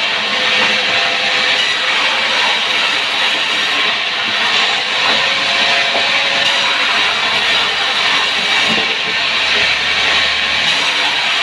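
A loud, steady hissing noise that runs without a break.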